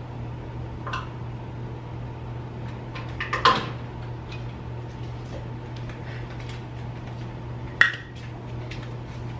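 Kitchenware being handled at a coffee maker: a few clicks and clatters, the loudest a short cluster about three and a half seconds in and a sharp click near the end, over a steady low hum.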